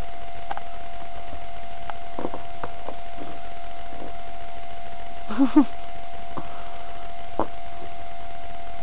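A Tamaskan dog biting and chewing snow: scattered short crunchy clicks, over a steady hum. About five and a half seconds in comes a brief two-part vocal sound, the loudest thing here.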